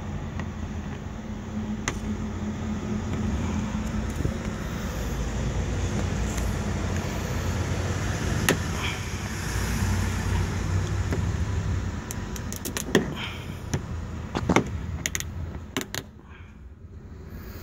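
Steady low rumble of a motor vehicle, swelling and then falling away near the end. Scattered sharp clicks and knocks come mostly in the later part.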